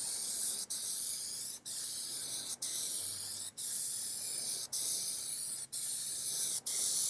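Aerosol spray can of Plasti Dip rubber coating hissing as it sprays a coat onto a car grille, in passes of about a second each separated by short breaks.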